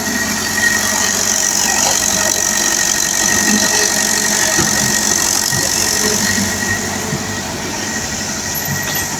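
Mini excavator running steadily: a continuous mechanical hum with a thin, steady high whine over it.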